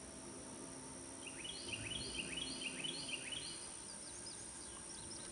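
A bird singing: a quick run of about six sharply rising notes starting a second or so in, then a few thin, higher notes near the end, over a low, steady outdoor background rumble.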